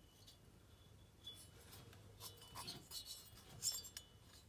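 Faint handling noise: a scatter of light metallic clinks and small rustles as a bare chainsaw cylinder is turned over in the hand, the sharpest clink a little before the end.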